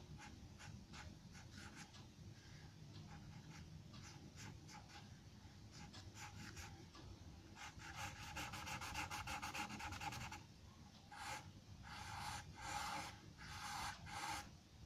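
Charcoal pencil scratching on drawing paper in quick back-and-forth shading strokes. Scattered short strokes come first, then a dense run of rapid hatching begins about eight seconds in, followed by a few shorter bursts near the end.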